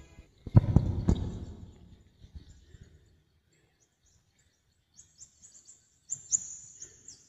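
Handling noise on the recording microphone after the song has ended: two thumps with a low rustling rumble about half a second in, fading over a couple of seconds. Later come faint ticks and a short cluster of clicks with thin high chirps near the end.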